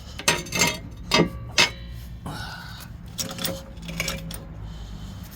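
Metal clinks and clanks from a car jack and jack stands being worked under a car: four sharp clinks in the first two seconds, then softer clicks with a brief squeak-like tone.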